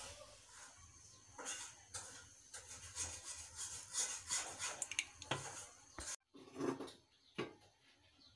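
Faint, irregular crackling and scraping from mustard oil heating in a hot iron karahi on a gas burner.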